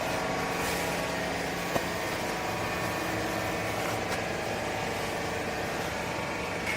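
Vertical lifting-chamber baler running with a steady mechanical hum, with a single sharp click about two seconds in.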